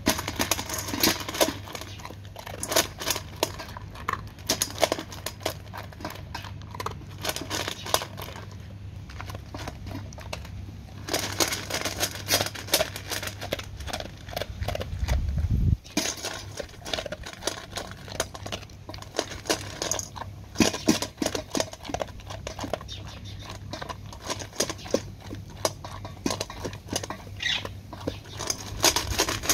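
A dog crunching dry kibble from a stainless steel bowl: a fast, uneven run of sharp crunches and clicks, with a quieter lull about nine to eleven seconds in.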